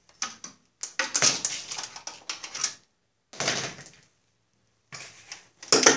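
Electrical wire being cut and handled for a starter solenoid hookup: three bursts of rustling and clicking scrapes with short quiet gaps between them.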